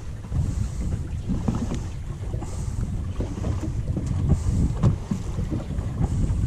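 Wind buffeting the microphone on an open boat, a low rumble that rises and falls in gusts, with a few light knocks.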